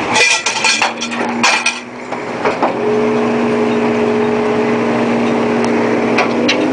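Metal clanking and banging for the first couple of seconds, then a fishing boat's engine running steadily.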